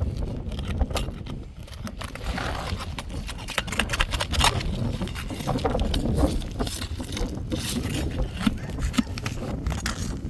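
Irregular scraping, knocking and clicking of hand tools and hands working an asphalt roof shingle loose and pulling its nails, over a steady low rumble.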